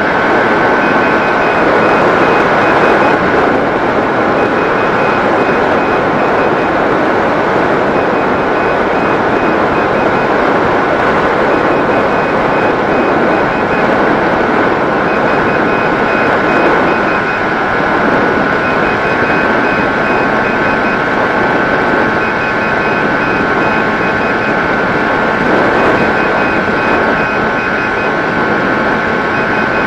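Electric motor and propeller of a 90 cm Mini Drak FPV plane running steadily in flight, its whine shifting slightly in pitch, over a steady rush of airflow noise. A faint broken high beep comes and goes throughout.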